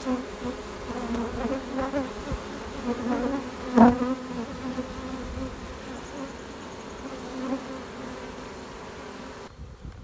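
Honeybee swarm buzzing close up at the rim of a nuc box: a steady, slightly wavering low hum of many wings, with one sudden louder moment about four seconds in. Bees are fanning at the box edge, the signal that draws the rest of the swarm to the queen in the box. The hum drops away sharply just before the end.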